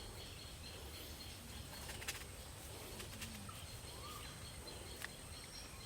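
Faint forest ambience: a steady high insect drone, with a few short rising bird calls in the second half and a couple of light clicks.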